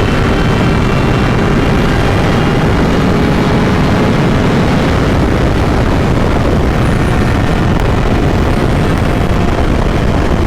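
Heavy wind rush over the microphone from a Kawasaki 636 sport bike ridden at speed, with the inline-four engine's steady hum faintly beneath it.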